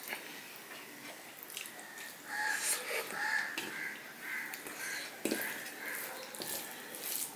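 Eating by hand: fingers squishing and mixing rice and mashed greens on a steel plate, with soft chewing and mouth clicks. From about two seconds in, a thin, wavering whistle-like tone comes and goes for a couple of seconds.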